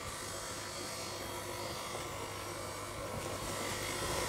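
Electric stand mixer running steadily on its lowest speed, its beater working a dry, crumbly pastry dough of butter, sugar and flour. A steady motor hum that gets slightly louder toward the end.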